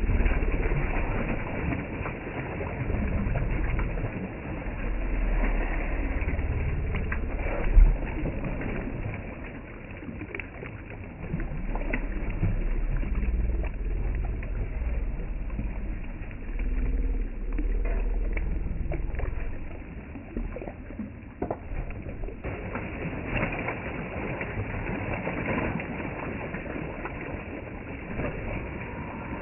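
Gold rocker box being rocked as water and gravel wash through it, a rough noisy sound with low rumbling swells every few seconds. There is one sharp knock about eight seconds in.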